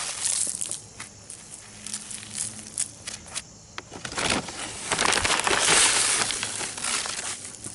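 Granular Garden-tone fertilizer being worked into garden soil, a rustling, crunching scrape with scattered clicks. It comes in two spells, one just after the start and a longer one from about the middle to near the end, with a quieter stretch between.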